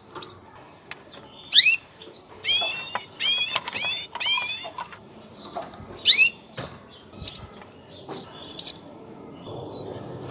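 Female canary giving its mating call: short, sharp chirps that sweep in pitch, spaced a second or so apart, with a quick run of about five falling calls a few seconds in. It is the call used to bring male canaries into breeding condition.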